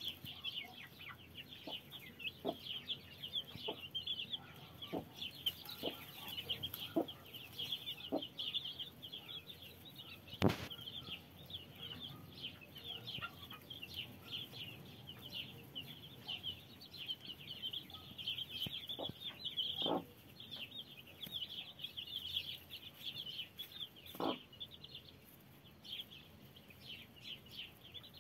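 A crowd of day-old chicks peeping continuously in high, rapid chirps, with the mother hen giving short, low clucks now and then. A single sharp knock comes about a third of the way in, and the peeping thins out near the end.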